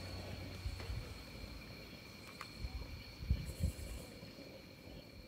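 Crickets trilling steadily in the background, with a few soft low thumps about three seconds in.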